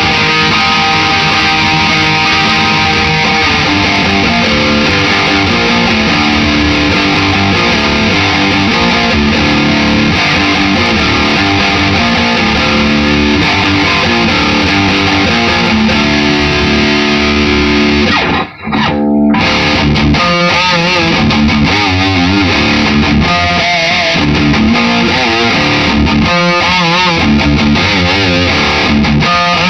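Electric guitar, a Les Paul, played with distortion through a guitar amp head and speaker cabinet: continuous riffing and held notes. It stops for a moment about two-thirds of the way through, and the later notes waver with bends or vibrato.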